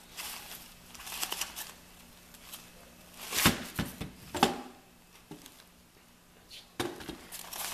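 Black nylon tripod carry bag rustling as it is handled and lifted, with a few sharp knocks, the loudest about three and a half and four and a half seconds in.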